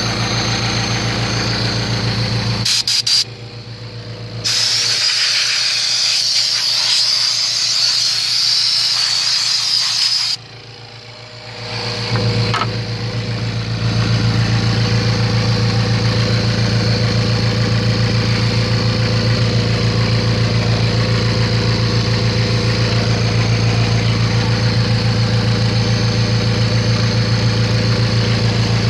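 Jeep's AMC 360 V8 engine idling steadily with an even pulse through the second half. Before that, about four to ten seconds in, there is a loud hiss of air.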